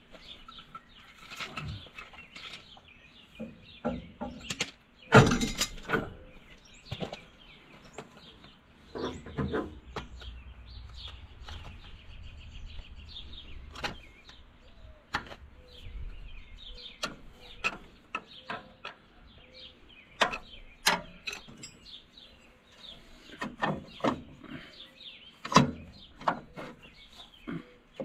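Hand tools and metal brake parts on an Allis-Chalmers D17 tractor clinking, knocking and scraping in irregular bursts, as the brake assembly is worked loose past a retaining spring that is holding it. The loudest knocks come about five seconds in, about nine seconds in and near the end.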